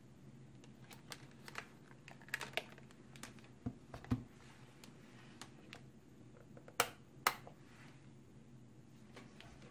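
Plastic clicks and knocks from handling a digital multimeter: a low thump as it is set down on the table, clicks of its rotary dial, and two sharper clicks about half a second apart, about seven seconds in, as the test leads are pushed into its jacks.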